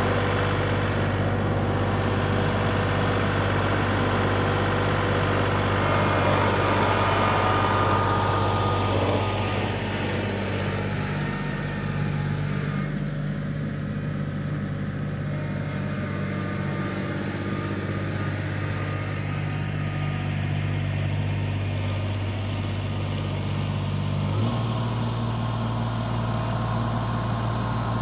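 Kubota L3901 tractor's three-cylinder diesel engine running steadily, louder in the first third. Near the end its note steps up abruptly as the tractor is driven toward the snowy incline.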